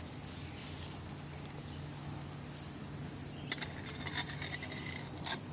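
A cooking pot's metal lid being lifted and handled, with a run of light clinks and brief ringing from about three and a half seconds in, over a steady low outdoor hum.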